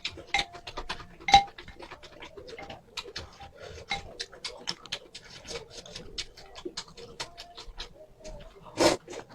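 Close-up eating sounds: rapid wet mouth clicks of chewing spicy noodles and chilies, with a louder crunchy bite about a second and a half in and another near the end.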